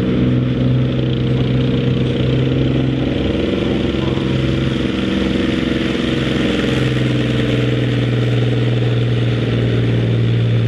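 Leopard armoured recovery tank's diesel engine running steadily under load as it drags a tractor-pulling sled, a constant low drone that eases briefly about halfway through.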